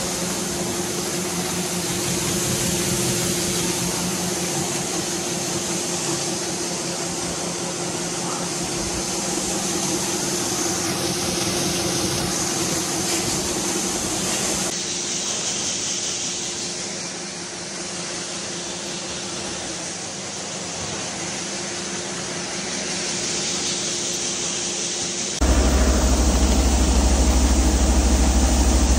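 Grain auger running with a steady mechanical hum while shelled corn pours into its hopper. About 25 seconds in, this gives way abruptly to the much louder, low drone of a Zmaj 170RM combine harvester's engine running as it unloads corn into a trailer.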